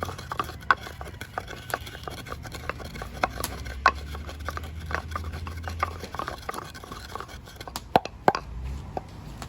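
Irregular sharp knocks and clicks of kitchen utensils at work, about one to three a second, with a few louder strikes near the end.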